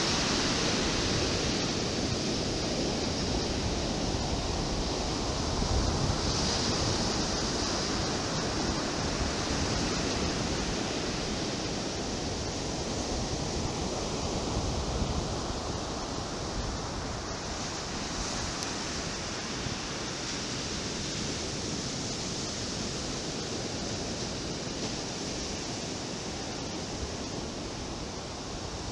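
Ocean surf washing onto a sandy beach: a steady rushing hiss that swells a few times as waves come in.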